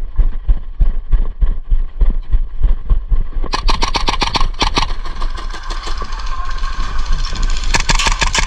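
Low thumps and knocks on the microphone for the first few seconds, then rapid full-auto bursts of airsoft gunfire from about three and a half seconds in. A second burst comes near the end.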